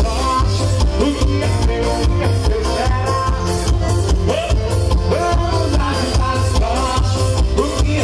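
Live forró pé de serra music: an accordion melody over a steady, heavy zabumba bass-drum beat with triangle, played loud for dancing.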